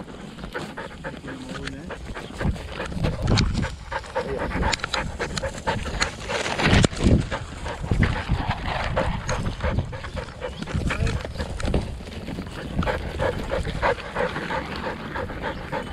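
Kelpie sheepdog panting as it runs, heard close up from a camera strapped to its body, with many quick knocks and rustles from its movement against the mount. The loudest stretch comes about six to seven seconds in.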